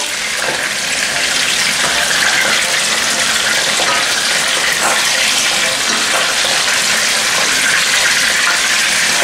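Salmon pieces sizzling in hot olive oil in a large pan as they are turned over, a loud, steady hiss.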